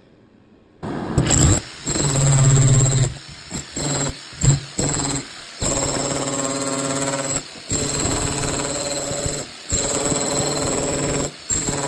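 Electric demolition hammer chiselling out plaster and masonry from a wall, starting about a second in and running in repeated bursts of one to two seconds with short pauses, a high whine riding over the hammering.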